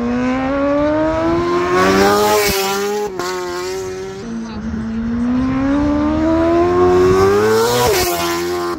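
Racing superbike engines at high revs, two bikes accelerating hard one after the other. Each engine's pitch climbs steadily for several seconds and then drops sharply, about two and a half seconds in and again near the end.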